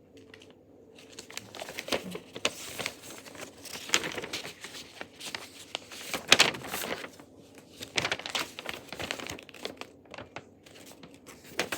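Paper instruction leaflets and packaging being handled and shuffled: irregular crinkling and rustling, with the sharpest crackle about six seconds in.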